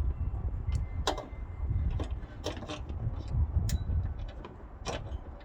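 Irregular small metallic clicks and clinks, about one a second, as a new hood latch and its bolts are handled and fitted into place, over a low rumble.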